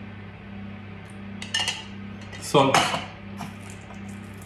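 A metal spoon clinking twice against a glass mixing bowl about a second and a half in, over a steady low hum.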